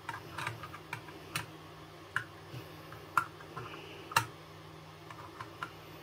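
Scattered small clicks and taps as a screwdriver backs out a grip screw and the grip panel is worked off a Ruger P94 pistol frame. The clicks come irregularly, the sharpest about three and four seconds in.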